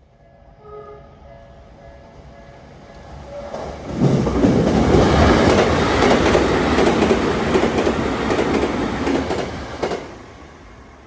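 Tokyu Meguro Line electric commuter train passing a level crossing at high speed. The rush of the train rises sharply about four seconds in, with rapid wheel clicks over the rail joints, and falls away about ten seconds in. Before it arrives, a faint repeating tone of the crossing's warning bell.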